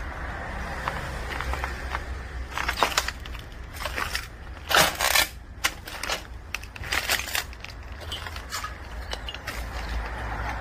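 Fire debris being cleared: irregular crunching and scraping of burnt material, loudest in a few bursts about three, five and seven seconds in, over a steady low rumble.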